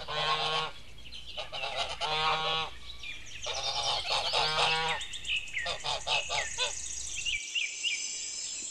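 Egyptian goose honking: three drawn-out calls followed by a run of short, quick ones. Near the end the calls give way to a steady high-pitched insect trill.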